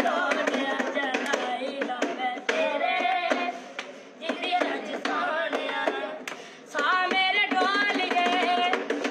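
Boys singing a wavering Indian melody, accompanied by hand drumming on a wooden school desk in place of a tabla. The singing breaks off briefly twice, near the middle.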